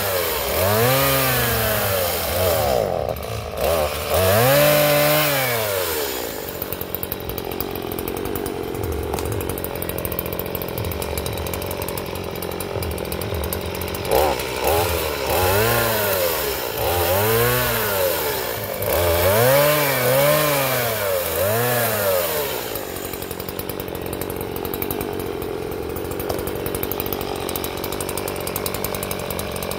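Stihl two-stroke chainsaw revving up and down in repeated throttle bursts while cutting fallen branches. It drops back to a lower, steady idle from about 6 to 14 seconds, and again from about 23 seconds on.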